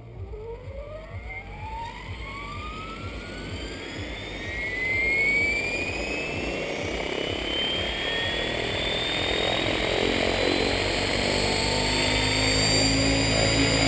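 Electric RC helicopter (Mikado Logo 800) spooling up on the ground: a whine from its motor and gears climbs steadily in pitch as the main rotor comes up to speed, growing louder through the first few seconds and then holding at full head speed just before lift-off.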